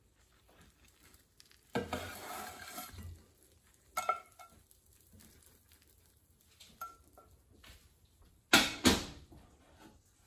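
A skillet and spatula handling a kunefe onto a ceramic plate: a scraping slide about two seconds in, then a sharp ringing knock, a small tap, and near the end a louder double clunk of the pan being set down.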